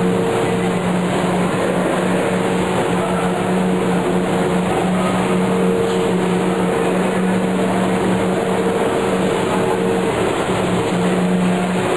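Steady, loud machinery drone in a rail tunnel under construction: a constant noise with a low hum and a fainter higher tone running through it, without a break.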